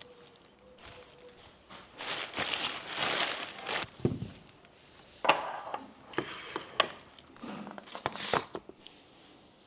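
Rustling and crinkling of packaging, with scattered sharp clicks and knocks of things being handled and set down.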